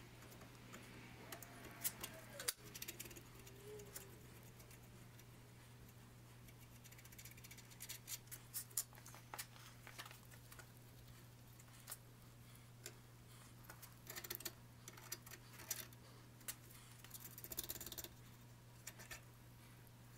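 Faint, scattered metallic clicks and taps of hand tools being handled at a bench vise, an adjustable wrench and threading die on a steel ball screw, over a steady low hum.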